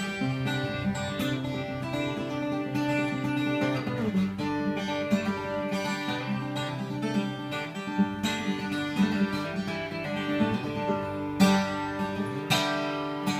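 Guild twelve-string acoustic guitar, freshly restrung, played with picked notes and chords ringing on. Two loud strummed chords come near the end.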